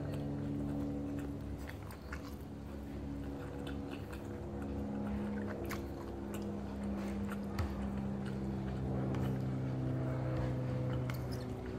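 Close-up chewing and mouth sounds of a person eating rice and squid by hand, with many small wet clicks. A steady low hum, its pitch shifting now and then, runs behind.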